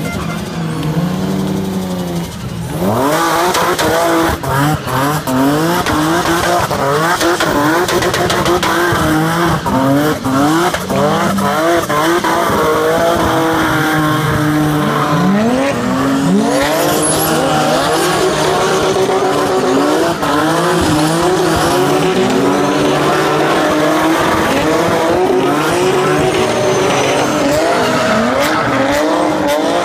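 Drift cars sliding sideways on tarmac: engines revving hard with the pitch sweeping up and down again and again, over a continuous tyre screech. About two and a half seconds in the revving and screeching come up sharply and stay loud.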